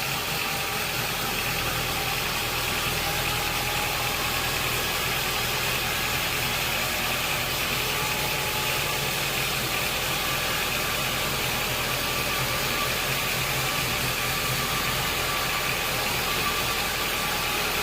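Sawmill machinery running steadily at an even pitch, with no change in load.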